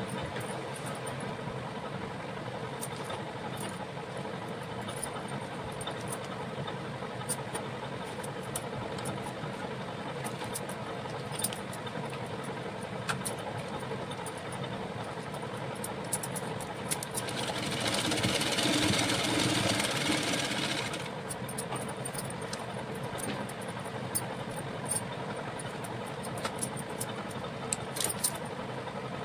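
Steady mechanical hum, with scattered small clicks and rustles of fabric and paper being handled. A louder rushing noise lasts about four seconds in the middle.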